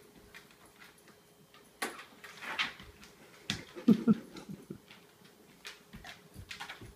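Wolf-dog hybrid's claws clicking and scuffing on a vinyl kitchen floor as it moves about and noses low, with two short, louder low sounds about four seconds in.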